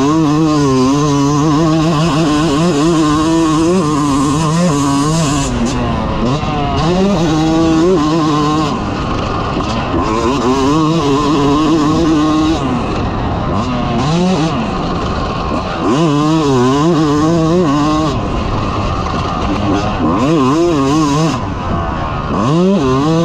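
2022 Yamaha YZ250's two-stroke single-cylinder engine being ridden hard, revving up and falling off every few seconds as the throttle is opened and shut, with a wavering pitch. Wind rushes over the microphone throughout.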